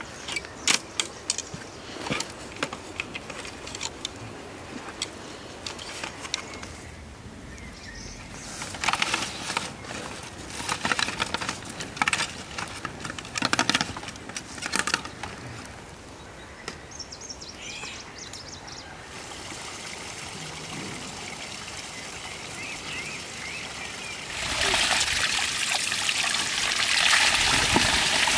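Wire being twisted with pliers to bind a dry cane fence: sharp clicks, scraping and rustling of the canes. About twenty-four seconds in, water starts pouring steadily off a stone spout.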